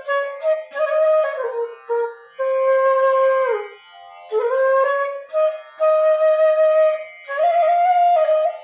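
F-sharp bass bamboo flute (bansuri) playing a slow melodic phrase: held notes joined by slides, with short breath gaps between phrases.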